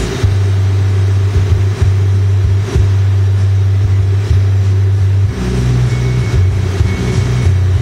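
Glassblowing bench torch running steadily, its flame giving a loud rushing rumble while borosilicate glass is heated in it. The low rumble shifts a little about five seconds in.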